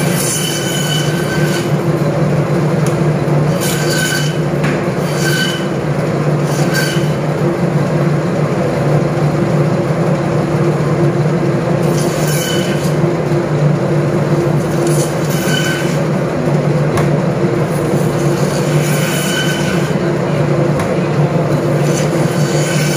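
Electric meat band saw running with a steady hum while bone-in goat meat is fed through it. The blade gives short, high squeals every few seconds as it cuts through bone.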